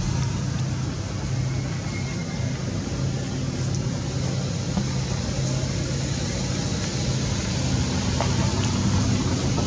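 A steady low mechanical hum over a background of noise, holding even throughout.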